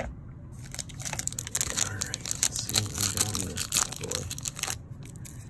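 Foil wrapper of a trading card pack crinkling and tearing as it is ripped open by hand, a dense run of crackles starting about half a second in.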